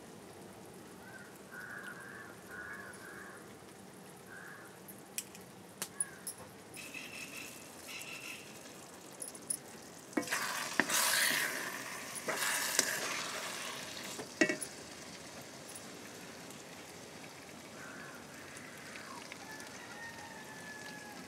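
Soya chunks frying and sizzling in a black iron kadai while a metal spoon stirs and clinks against the pan. The sizzle flares up loudly twice around the middle, as curry leaves go into the hot oil.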